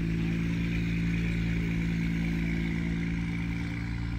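A vehicle engine running at a steady, unchanging speed, giving an even hum over a low rumble.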